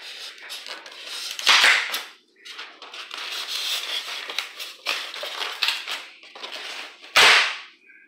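Styrofoam (expanded polystyrene) packaging insert being pried and pulled out of a cardboard box, creaking and rubbing, with two loud cracking snaps as the foam gives, about one and a half seconds in and near the end.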